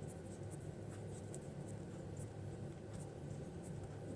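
Small Emax brushless drone motor turned slowly by hand close to the microphone: faint, irregular scratchy ticking over a low steady hum. It is a rubbing the owner blames on metal filings caught in the windings.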